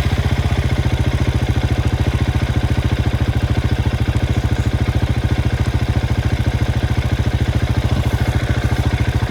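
Off-road motorcycle engine idling steadily with a fast, even beat.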